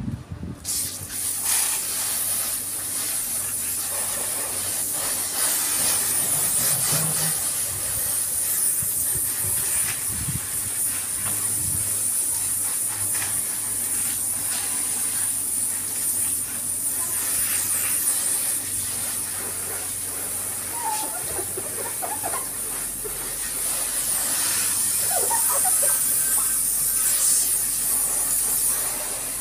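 Garden hose spraying water over a soapy motorcycle to rinse it: a steady hiss of water spattering on the bodywork and seat, starting about half a second in.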